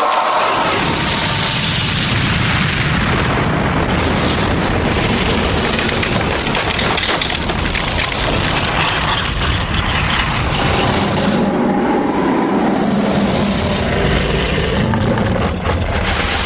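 Dramatic sound effects of ice cracking and breaking up: a loud, dense rumbling roar with booms.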